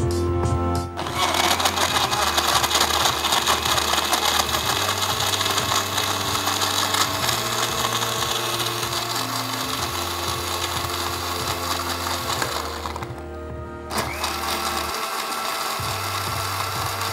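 Countertop electric blender running, blending chunks of KitKat with vanilla ice cream and milk into a milkshake. It starts about a second in, cuts out for about a second three-quarters of the way through, then starts again. Soft background music plays underneath.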